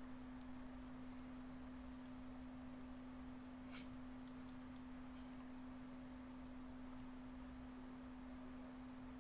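A steady low pure tone, like an electrical hum, holding one pitch without change under faint background hiss; a faint brief high chirp is heard about four seconds in.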